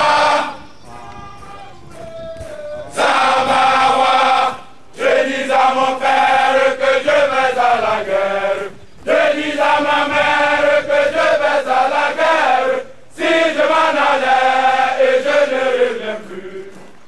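A large group of men chanting a song in unison, in loud phrases of a few seconds each with short breaks between them; softer for the first couple of seconds.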